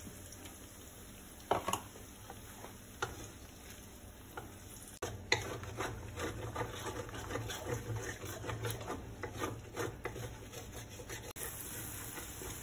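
Wooden spatula knocking and scraping against a wok, scrambling egg among sliced sausages and meatballs, with a light sizzle of frying. A few separate knocks, then steady scraping strokes from about five seconds in.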